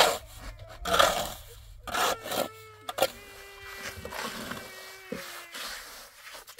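A hand trowel scraping and smoothing wet cement, in strokes about once a second, then softer through the second half.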